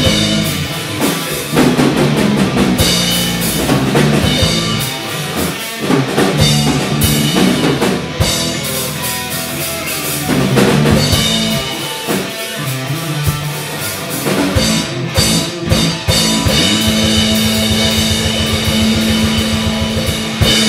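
Live rock band playing electric guitar, bass guitar and drum kit. About four seconds before the end, one chord is held over rapid, even drumming, and then the song stops.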